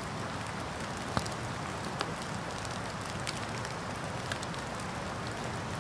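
Small wood campfire crackling: a few scattered sharp pops over a steady hiss.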